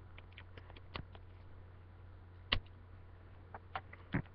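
Fingers picking at a CD's packaging: scattered small clicks and taps, one louder about two and a half seconds in and a few more near the end, over a steady low hum.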